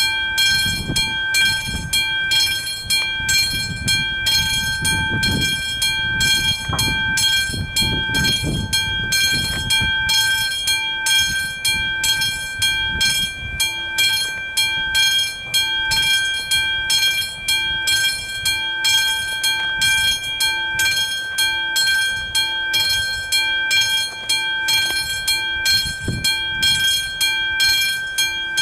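Classic mechanical level-crossing warning bell ringing in quick, even strokes as the crossing's flashing lights signal an approaching train. A low rumble sits underneath during the first several seconds.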